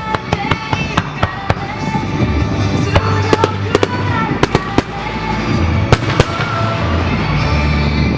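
Aerial fireworks bursting: a run of sharp bangs and crackling pops, with two especially loud bangs about six seconds in, over music with a steady bass played along with the show.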